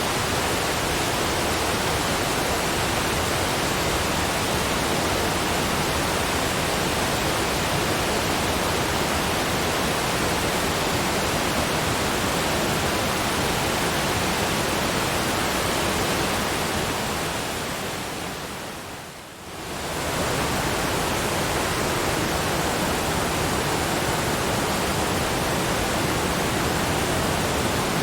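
Steady, even rushing of a waterfall, a dense hiss spread across all pitches. About two-thirds of the way through it fades down over a few seconds and then comes straight back to full level.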